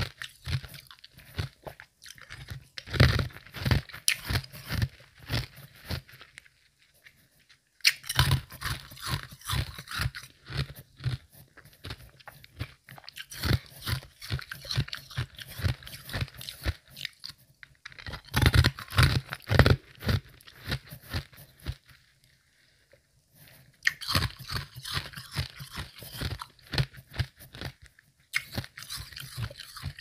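Close-miked chewing of semi-melted ice: fast runs of medium-soft crunches, pausing briefly about a quarter of the way in and again about three-quarters through.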